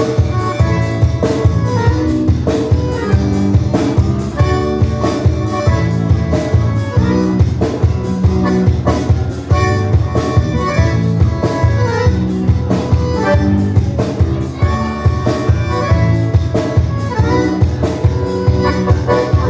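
Live band playing an instrumental passage with no singing: sustained melody notes over a steady drum beat.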